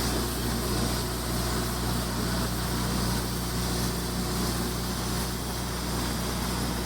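Electric arc welding: a steady crackling hiss from the welding arc over the steady low hum of the welding machine.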